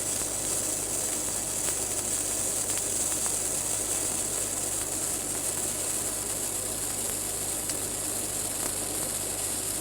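Gas-shielded flux-cored arc welding with Pipeliner 81M wire on a vertical-up first pass on carbon steel pipe: the arc gives a steady, even hiss.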